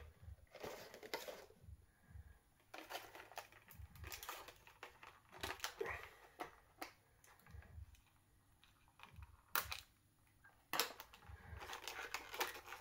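Clear plastic packaging tray crinkling and clicking as a small action figure is handled and worked out of it, in short irregular spells with a few sharper clicks.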